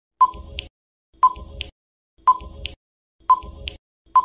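Quiz countdown-timer sound effect: five short beeping ticks, one each second.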